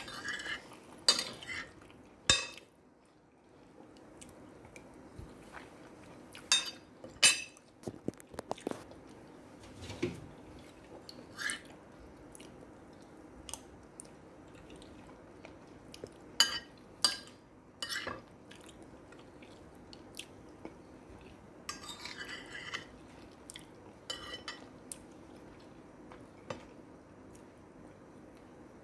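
Metal spoon scraping and clinking on a plate while scooping up rice, in irregular short strokes with pauses between.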